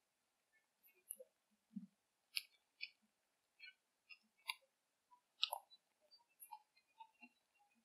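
Faint, irregular clicks and small crunching ticks in a night recording with its background noise stripped out, coming a few each second. The sharpest snaps fall about two and a half and five and a half seconds in, with a soft low thud just before two seconds.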